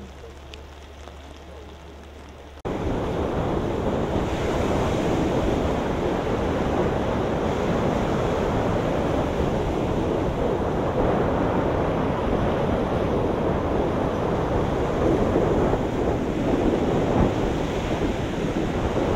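Steady rush of wind and surf, coming in suddenly about three seconds in after a faint low hum.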